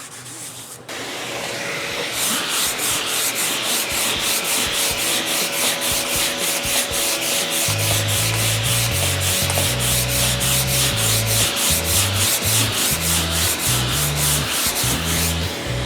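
Hand block sanding of body filler on a car fender: rapid back-and-forth strokes of sandpaper on a sanding block, about four a second, starting about a second in. Low bass tones that change step by step come in about halfway through.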